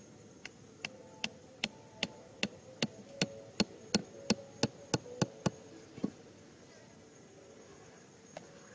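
Back of a hatchet hammering a thin wooden stake into sandy ground: about sixteen sharp knocks over five and a half seconds, coming faster as it goes. Insects buzz steadily underneath.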